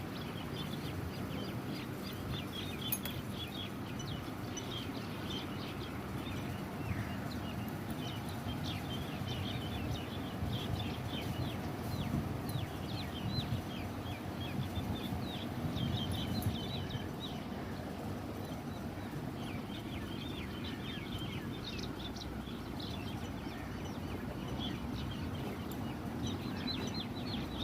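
Small birds chirping over and over, in quick short notes, over a steady low background rumble.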